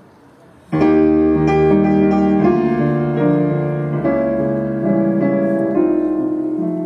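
Solo grand piano playing: after a faint, quiet start, a loud full chord with deep bass comes in under a second in, and rich sustained chords follow, easing slightly in loudness near the end.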